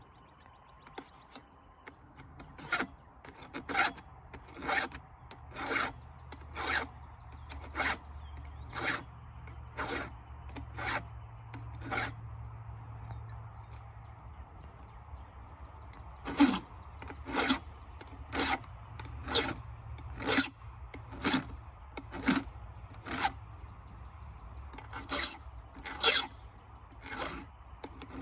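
Hand file rasping on a chainsaw chain, one stroke about every second: a run of about nine strokes, a pause of a few seconds, then about a dozen more.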